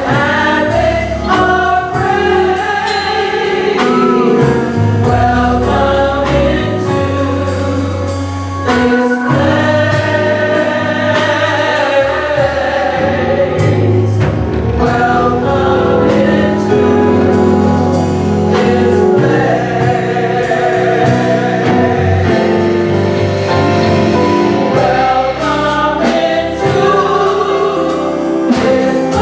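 Gospel choir singing in harmony over instrumental backing, with strong bass notes and a regular beat.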